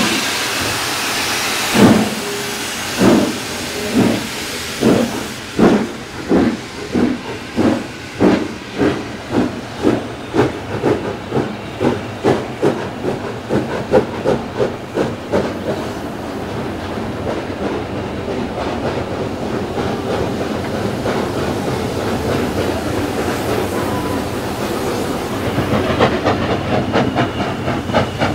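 Steam locomotive pulling away: a hiss of steam, then exhaust chuffs about a second apart that quicken steadily as the train gathers speed, until about halfway they run together into a steady rush of exhaust and running noise, which grows louder near the end.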